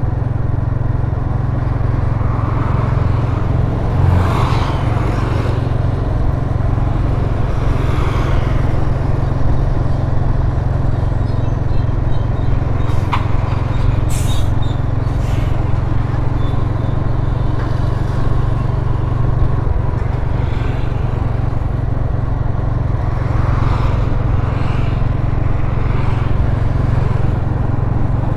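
Road traffic heard while riding along a street: a steady low engine and wind rumble, with other vehicles swelling up as they pass a few times.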